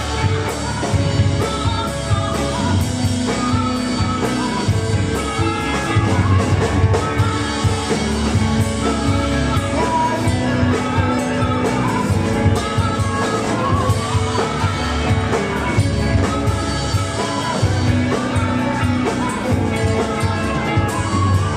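A rock band playing live, with a lead vocal sung over the band's instruments and drums.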